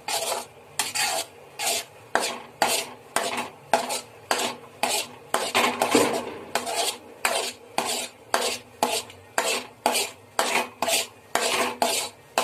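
A metal spoon stirring and scraping a thick coconut-and-condensed-milk burfi mixture around a non-stick pan, in quick, even strokes of about two a second.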